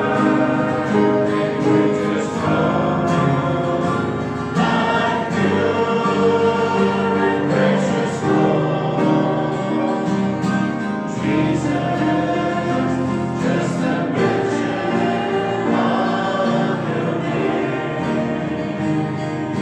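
A congregation singing a gospel hymn together, with guitar accompaniment.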